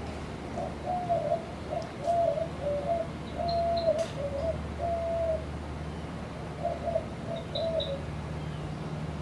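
A dove cooing, a string of low notes, pausing, then cooing again briefly, with a few faint high bird chirps. Underneath is the steady low hum of a Casablanca Delta II ceiling fan running.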